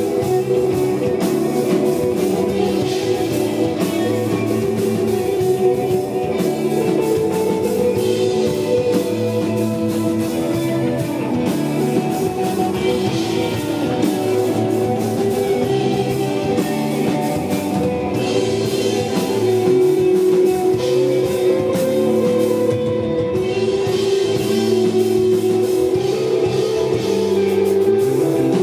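Live desert rock band playing a laid-back instrumental passage of held, ringing electric guitar notes over a steady drum kit.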